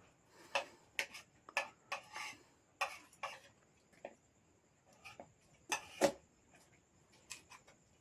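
Faint, scattered clicks and taps, about a dozen at irregular intervals, with no low heartbeat thumps among them.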